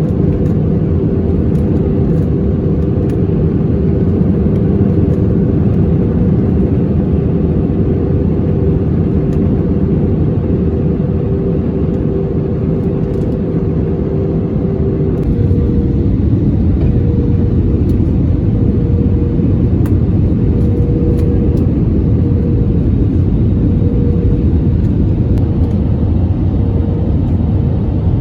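Cabin noise of an Airbus A320neo in flight: a loud, steady rumble of engines and airflow with a thin steady hum. About halfway through, the hum shifts up to a slightly higher pitch.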